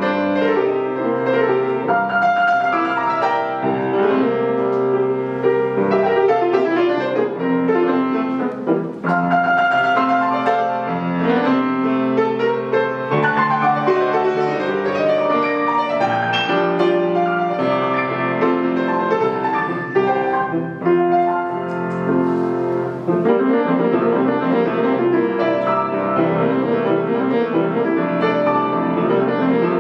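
Estonia grand piano played solo: a busy classical-style passage with many notes sounding together, rising and falling without a break except for short dips about nine and twenty-one seconds in.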